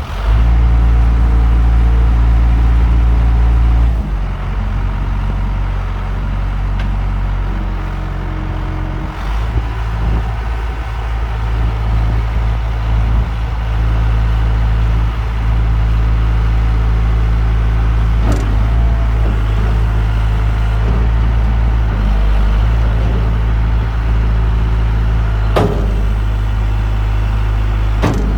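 Bobcat 853 skid steer loader's diesel engine running just after starting: it settles to a lower speed about four seconds in, picks up again around nine seconds and then runs steadily. Two sharp knocks come in the second half.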